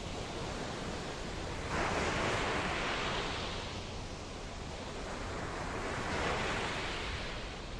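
Small waves breaking on a sandy beach and washing up and back over the sand, the surf swelling twice as waves run in.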